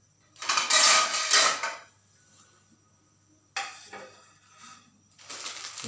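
Kitchenware being handled: a loud scraping clatter lasting about a second and a half, then a sharp clack a little past the middle, followed by lighter rattling.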